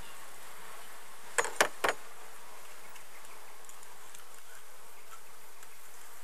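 Steady buzzing of a package of honey bees, thousands of workers humming inside their screened shipping cage. Three sharp clicks come a little under two seconds in.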